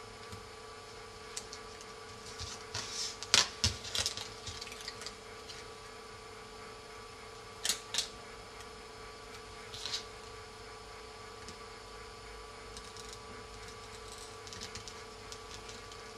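Hands handling an iPhone 3G front frame and its adhesive tape strips: scattered small clicks, taps and rustles, busiest about three to five seconds in, with a couple of sharper clicks near the middle. A faint steady hum runs underneath.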